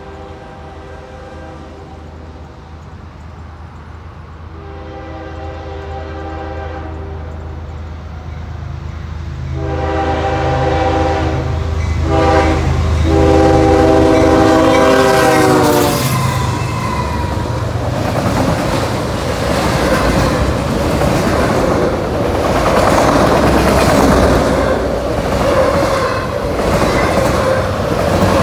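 CSX diesel freight locomotive blowing its horn in several blasts for a grade crossing, with the engine growing louder as it closes in. The horn cuts off about 16 s in as the locomotive passes close by. Then comes the rushing clatter of steel wheels and a train of autorack cars rolling past at speed.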